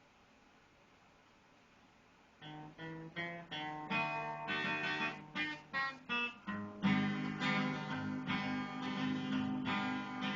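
Acoustic guitar starting a bluegrass tune after about two seconds of quiet: a few separately picked notes, then steady strumming from a little past halfway.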